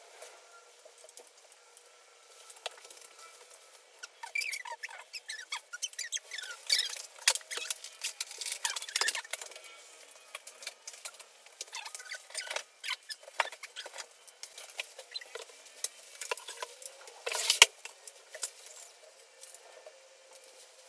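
Clicking, scraping and rattling of an Alesis Nitro Mesh drum rack's metal tubes and clamps being handled and fitted together. Near the end comes one sharper knock, the loudest sound.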